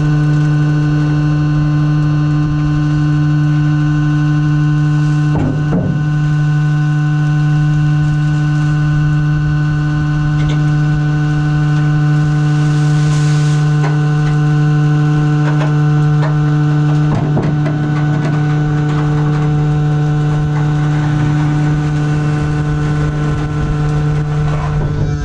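Waste compactor container's motor running with a steady hum. A few knocks and rustles sound as trash bags drop into the hopper, about five seconds in, again past the middle, and at the end.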